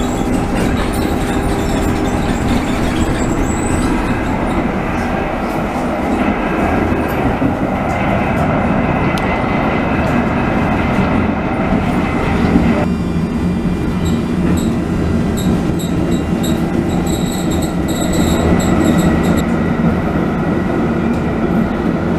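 Helsinki city tram running, heard from inside the passenger cabin: a steady rumble of the motors and the wheels on the rails. Short high-pitched squeals come and go through the second half.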